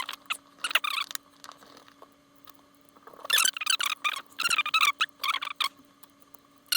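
Short runs of high squeaks and scrapes from small tools working on the opened Insta360 GO camera, in three bursts, over a faint steady low hum.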